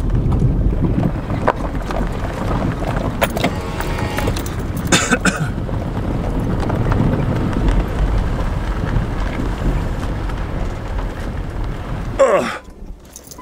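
Car driving slowly on a gravel track, heard from inside the cabin: a steady low rumble of engine and tyres on gravel. The noise drops away abruptly near the end.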